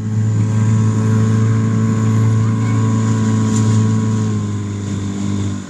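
Small outboard motor on an inflatable coach boat running steadily under way, a constant low drone that eases slightly near the end.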